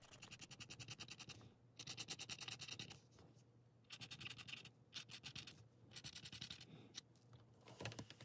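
Silverpoint stylus in a wooden holder scratching faintly across tinted prepared paper in short spells of quick strokes, with brief pauses between them.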